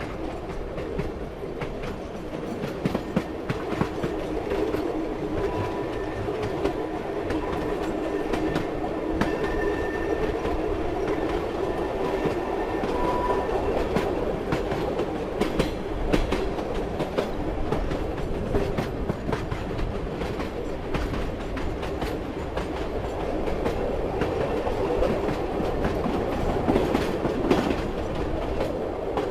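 A moving train: its wheels knock over the rail joints with frequent clicks over a steady running rumble. A faint high whine comes and goes in the first half.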